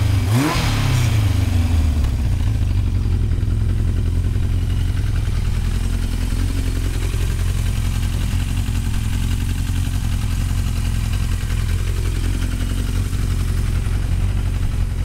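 1981 Yamaha XJ750's air-cooled inline-four engine running: a quick rev about half a second in, then idling steadily.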